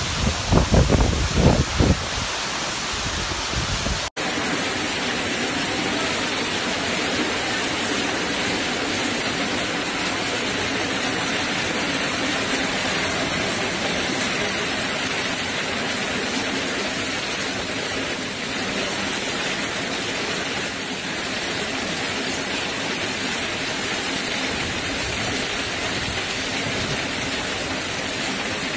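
Hurricane wind gusting against the microphone in heavy bursts for the first two seconds. After a sudden cut, a steady rush of heavy hurricane rain and wind.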